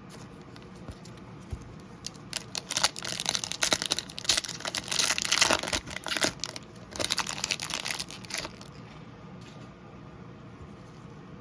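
Trading card pack wrappers being torn open and crinkled by hand: a run of crackly rustling that starts about two seconds in, is loudest in the middle and dies away near the end.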